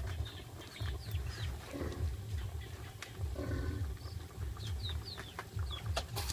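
Chickens clucking, with small birds giving short falling chirps, over a low steady rumble.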